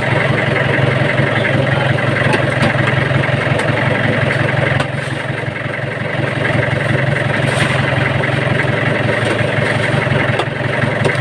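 A boat's engine running steadily at a constant speed, a low even hum with no change in revs.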